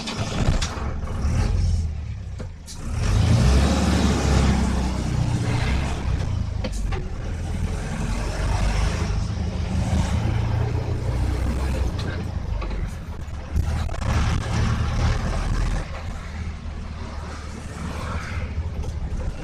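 A heavy vehicle's engine running with a steady low rumble, rising in loudness about three seconds in.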